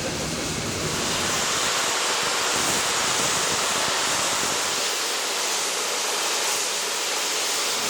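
Steam locomotive No 926 Repton, a Southern Railway Schools class 4-4-0, releasing steam in a steady hiss that grows a little louder about a second in.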